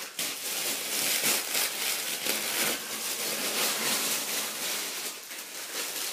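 Plastic wrapping crinkling and rustling continuously as it is pulled open and handled, easing a little near the end.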